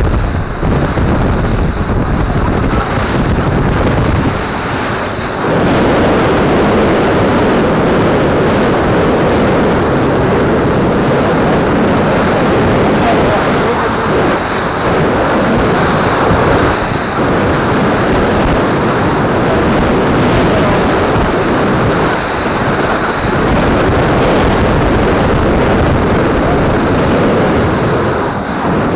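Motorboat under way on flat water: steady wind buffeting the action camera's microphone over the rush of water along the hull and the boat's engine. The noise grows fuller about five seconds in.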